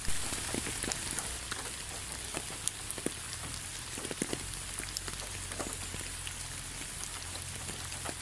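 Steady rain falling: an even hiss with many separate drops striking close by at irregular moments.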